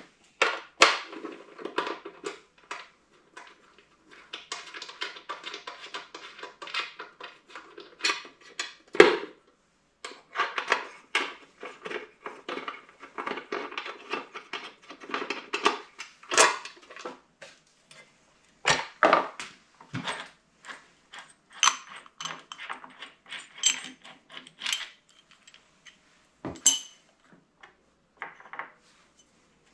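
Metal parts of a masonry saw being handled by hand: an irregular run of clinks, clicks and rattles, with a few heavier knocks spread through, as the saw is readied for its blade.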